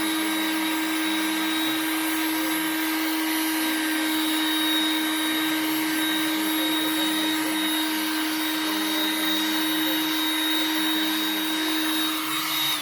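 Electric heat gun running steadily at full blast, a strong motor hum and high whine over fan noise, warming the case plastic to soften the adhesive; near the end it is switched off and the fan winds down.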